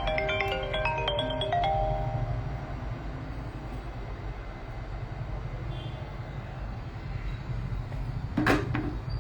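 A chiming melody of short, clear notes at changing pitches, like a phone ringtone or mallet tune, fades out about two seconds in. A steady low hum follows, with one sharp click about eight and a half seconds in.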